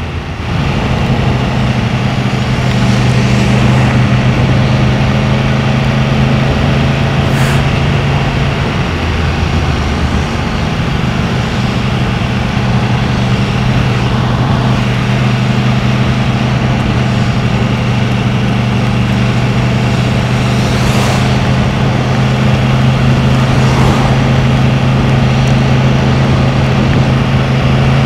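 Yamaha MT-10's crossplane inline-four engine running at a steady cruise, the pitch holding level after the throttle opens about half a second in. Heavy wind rush over the bike-mounted action camera.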